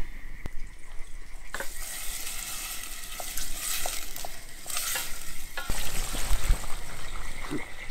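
Chopped onions frying in oil in a pot, sizzling, with a hiss that swells about a second and a half in. A few short knocks of a spoon stirring the onions against the pot.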